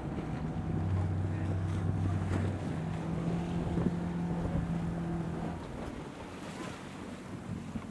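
Motorboat engine running with a steady note that shifts in pitch a couple of times, over wind buffeting the microphone and water splashing against the hull.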